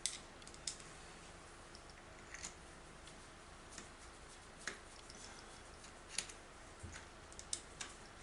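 Scattered light clicks and taps of hand tools and small metal parts being handled on an ATV, a dozen or so at irregular intervals, over a faint steady hum.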